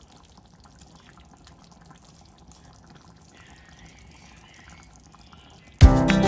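Curry simmering in a pan, heard faintly as soft bubbling with small pops. Near the end, loud guitar music starts abruptly.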